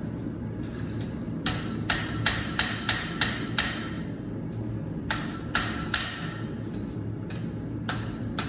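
Hand hammer striking hot steel bar stock on an anvil, a run of about seven quick ringing blows, then two shorter runs of three, as the bar's angles are trued up. A steady low hum runs underneath.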